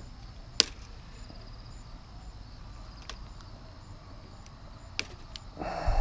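Hand wire cutters snipping through steel wire mesh: one sharp snip about half a second in and two more near the end, then a brief, louder scraping rustle of the mesh.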